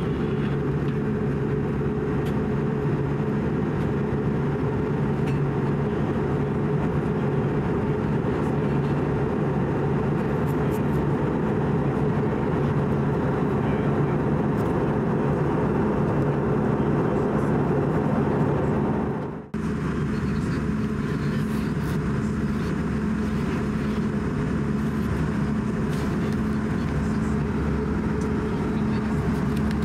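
Steady cabin drone inside an Airbus A320-214, from its CFM56 engines and airflow, with a few low steady hums running through it. It drops out for a moment about two-thirds of the way through, then carries on much the same.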